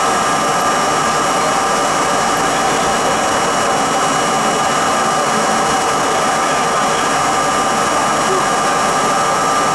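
R32 subway train running along the track, a steady mix of wheel-on-rail rumble and motor and gear whine, with a constant high tone through it.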